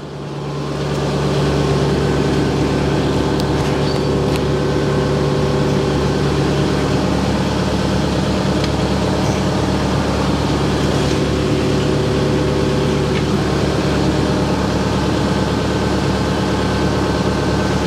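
Forklift engine running, rising over the first couple of seconds and then holding steady.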